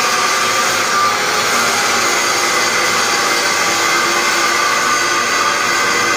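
Angle grinder grinding steel: a steady, loud whine over a rushing hiss that holds at one level throughout.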